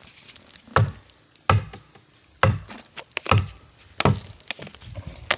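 Pieces of hard damar laut timber being struck or knocked together: six sharp wooden knocks, less than a second apart, with the chainsaw silent.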